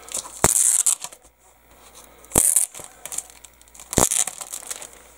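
Clear self-closing plastic decal bag being handled: three short, sharp rustles about a second and a half apart, the bag's film and adhesive flap tearing and crinkling.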